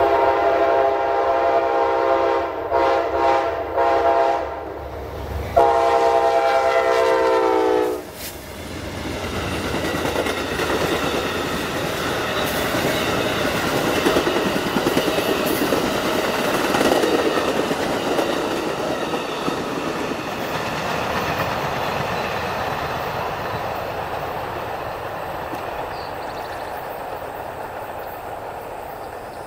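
Amtrak Silver Meteor locomotive horn sounding several blasts at a grade crossing, the last one long and dropping in pitch as the locomotive passes, then the stainless-steel passenger cars rolling by as a steady rushing rumble that builds and slowly fades.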